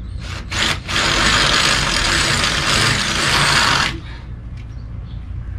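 Power drill drilling out a rivet on an RV awning: a short burst, a brief pause, then about three seconds of steady drilling that stops abruptly.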